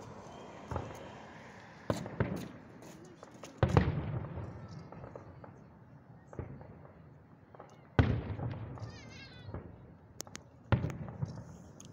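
Aerial fireworks shells bursting: four sharp booms a few seconds apart, each trailing off into an echoing rumble, with smaller pops and crackles in between. The loudest come a little under four seconds in and about eight seconds in.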